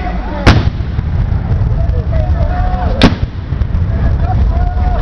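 Two black-powder gunshots, about two and a half seconds apart, over a steady low rumble and faint voices.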